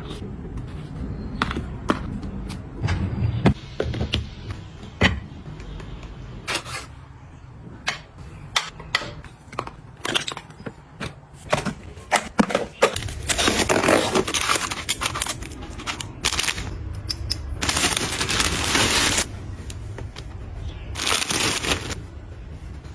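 Items and packaging handled close up: scattered clicks and taps as things are picked up and set down, with a few longer rustling or hissing passes, each a second or two long, in the second half.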